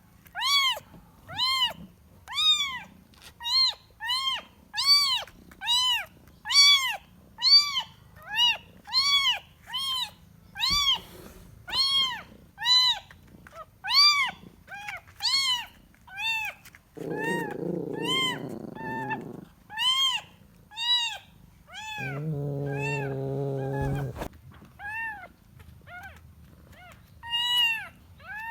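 Kitten meowing over and over, short high calls about one a second: a kitten calling for its mother. Twice a lower, steadier sound of two to three seconds comes in among the calls, around the middle and about two thirds through.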